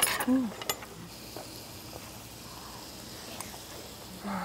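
Close-miked mukbang eating sounds: a few sharp clicks of a utensil against a small steel rice bowl, with a short falling hum of enjoyment soon after the start and again near the end.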